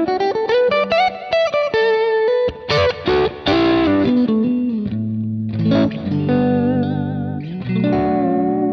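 Strat-style electric guitar played through a Kemper Profiler, a single-note lead line with a rising slide at the start, bent notes and vibrato on a held note near the end. The tone has the bass and fullness cut and low mids, high mids and treble added, a cutting lead sound on the neck-and-middle in-between single-coil position.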